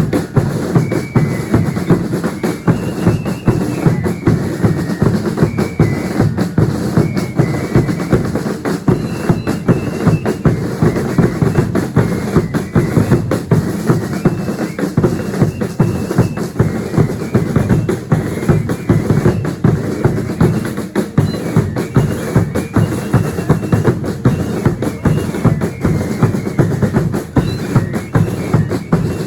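Bass drums and snare drums of a religious dance troupe beating a fast, steady rhythm, with short high piping notes sounding over the drumming.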